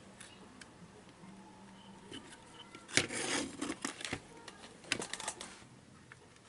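A power supply circuit board being handled and turned over on a workbench: faint clicks and rattles, with a louder cluster about three seconds in and another about five seconds in.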